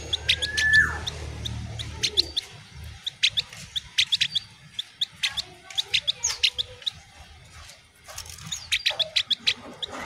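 Caged opior (ovior), a Javan grey-throated white-eye, calling in a rapid run of short, sharp high chirps. About half a second in comes one longer slurred whistle that rises and then drops.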